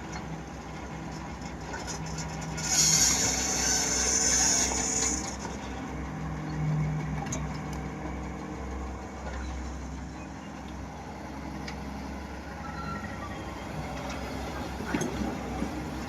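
Diesel engine of heavy earth-moving machinery working with a steady low rumble. A loud hiss lasts a couple of seconds about three seconds in.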